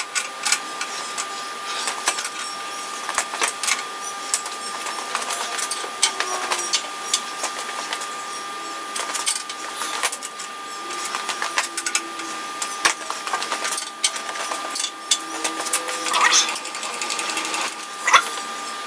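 Irregular metal clicks and clinks from hand work on a metal lathe during levelling, over a steady faint hum; a sharper knock comes near the end.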